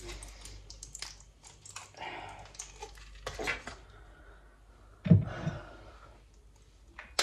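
Pill packaging being handled to take a dose of medication: a run of small clicks and crinkles, then a loud dull knock a little past five seconds in.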